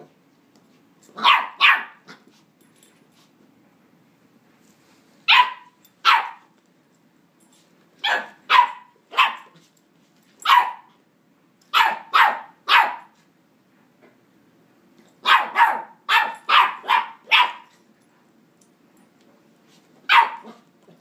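West Highland white terrier puppy, nine weeks old, play-barking in short high yaps. The barks come in quick runs of one to six, with pauses of a second or more between runs; the longest run is in the latter half.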